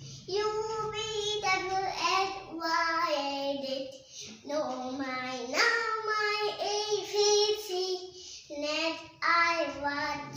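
A young girl singing a children's rhyme in short phrases with held notes and brief pauses between them.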